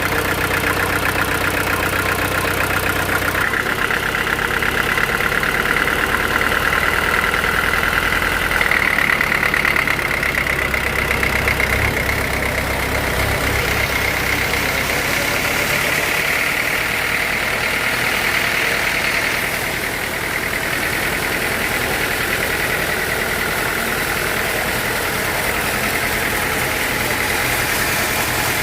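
Sawmill machinery running steadily: an engine drone with a high whine over it that steps up in pitch a few seconds in and again several seconds later.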